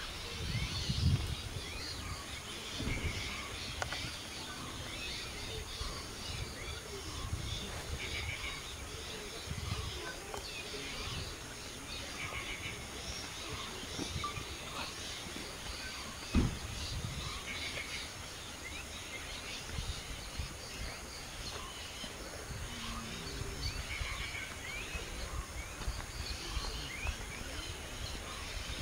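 Outdoor bird chorus: short chirps repeating every five or six seconds over a steady hiss, with other small calls scattered through it. There are low rustling sounds near the start and a single sharp knock about sixteen seconds in.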